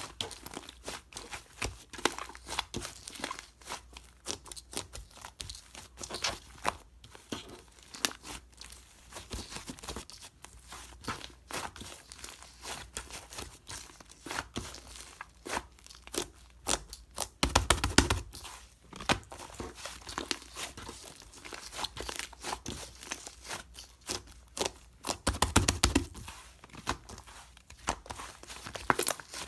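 Fluffy shaving-foam slime being squeezed, stretched and poked by hand: a dense, continuous run of small crackles and pops, with two louder bursts of squishing, one about two-thirds through and one near the end.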